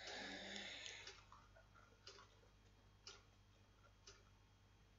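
Near silence: room tone with faint ticks about once a second.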